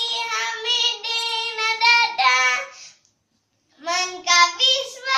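A child singing alone, holding long sustained notes. The singing breaks off for about a second partway through, then starts again.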